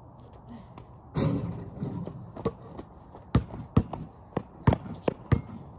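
A basketball shot hits the hoop with a short clatter about a second in. From about halfway, a basketball is dribbled on a concrete driveway, its sharp bounces coming roughly three a second.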